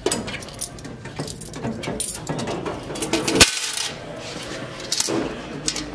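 Quarters clinking and jingling as loose coins are gathered and shifted in a vending machine's coin box, with one sharper knock a little past the middle.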